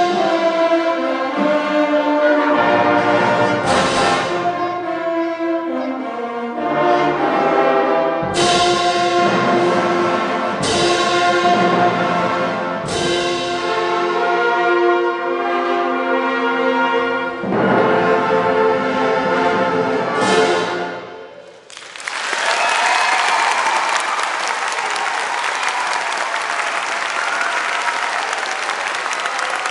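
Orchestra of strings, woodwind and brass playing loud accented chords, ending on a final chord about 21 seconds in. An audience then applauds.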